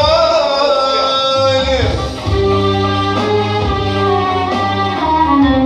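A male singer holds a long, wavering note over violin and electronic keyboard accompaniment. About two seconds in the voice drops away and the violin and keyboard carry on with an instrumental passage.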